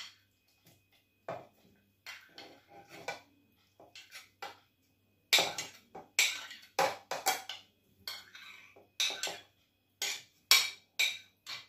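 Metal spoon scraping and knocking against a ceramic plate and the plastic bowl of a mini chopper as cooked aubergine flesh is spooned in. The clinks come sparsely at first, then quicker and louder from about five seconds in.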